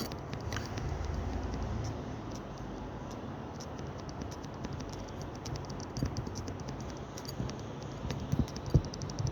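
Faint, irregular light taps and handling clicks of a smartphone as a finger is repeatedly placed on and lifted from its fingerprint sensor, over a steady background hiss, with a few firmer knocks near the end.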